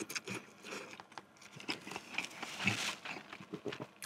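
A person slurping and chewing a mouthful of instant noodles, with light irregular clicks and scrapes of a metal fork in a paper cup.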